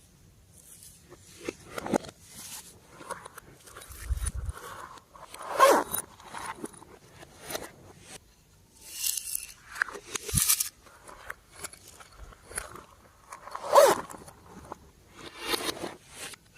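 Hands squishing, stretching and poking slime: irregular sticky crackles and squelches, with a handful of louder squelches spread through.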